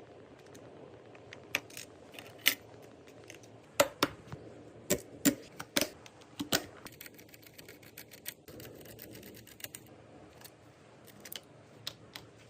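Computer parts being handled and fitted: a run of sharp, irregular clicks and knocks of hard plastic and metal, thickest and loudest in the middle few seconds, over a low steady hum.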